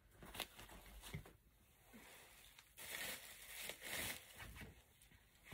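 Faint rustling and crinkling of clothes being handled and pushed into a soft backpack, in a few soft bursts, the loudest lasting about a second past the middle.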